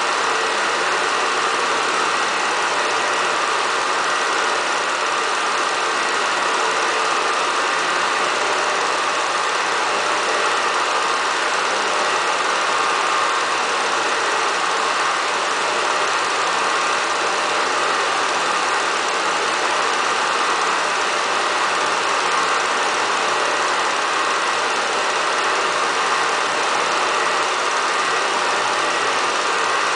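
Steady, unchanging mechanical running noise with a faint hum.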